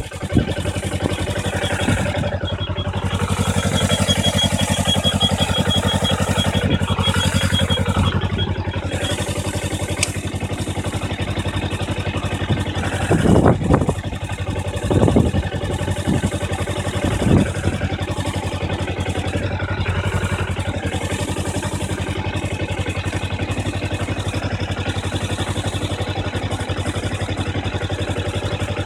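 2012 Kawasaki Ninja 250's parallel-twin engine idling steadily, with a few short louder surges about halfway through. A thin high squeak comes and goes, the noise this bike makes while its clutch lever is pulled in and which stops when the clutch is let out.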